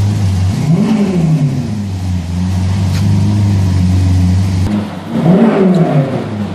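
Lamborghini Aventador LP700-4's V12 engine idling and blipped twice: the revs rise and fall quickly about a second in and again about five seconds in.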